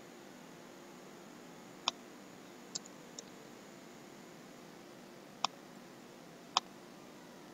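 Computer mouse clicking: a few sharp, separate clicks spread out over several seconds, over a faint steady hum.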